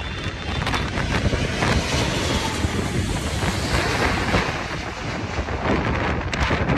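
Jet noise from an Airbus A380's four engines as it passes low overhead on approach: a steady, dense rush. Crosswind gusts buffet and crackle on the microphone throughout.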